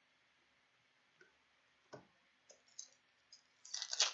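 Trading card packs and cards being handled: a few faint scattered clicks, then a louder crinkling of a pack wrapper being opened near the end.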